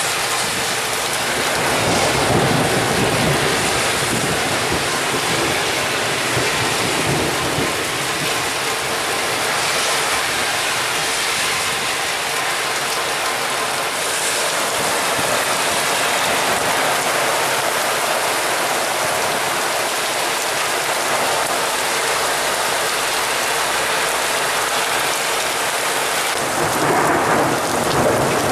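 Thunderstorm with heavy rain and gusting wind: a steady dense hiss that swells louder about two seconds in and again near the end.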